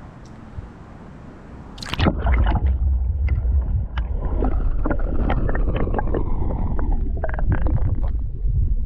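An action camera goes into the water with a splash about two seconds in; from then on the spring is heard underwater, muffled through the camera housing: a steady low rumble of flowing water with many scattered clicks and crackles.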